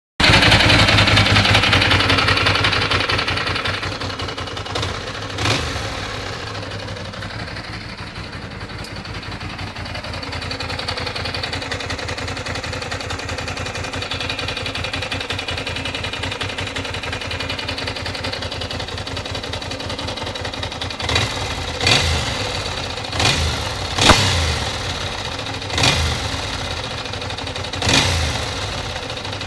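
Ducati 600 Monster's air-cooled V-twin engine running. It starts loud and settles to a steady idle over the first several seconds, then near the end the throttle is blipped about six times in quick succession, each a short rev that falls back to idle.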